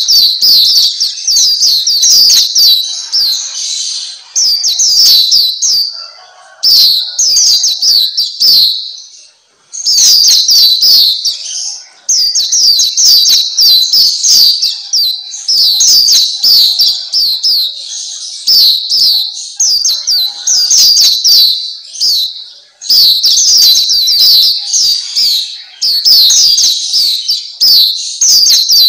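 Black-capped white-eye singing a rapid, high-pitched twittering song in phrases of a second or two, with short breaks between them.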